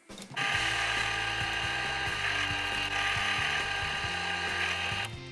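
Bench drill press running steadily while it bores out the centre hole of a 3D-printed plastic gear to fit its shaft. It starts about half a second in and stops shortly before the end.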